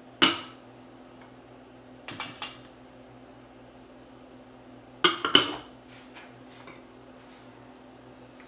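Dishes and utensils clinking against a mixing bowl: one sharp clink at the start, a quick run of three about two seconds in, and a cluster of clinks around five seconds in.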